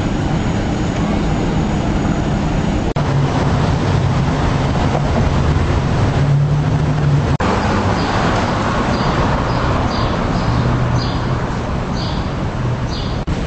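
City street traffic noise with a steady low vehicle drone, broken by two abrupt cuts. In the last few seconds a faint high tick sounds about once a second.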